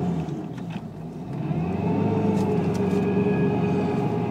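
Off-road 4x4's engine working under load in deep mud: the revs fall off about a second in, then pick up again and hold steady, as it tries to pull out of the ruts it is stuck in.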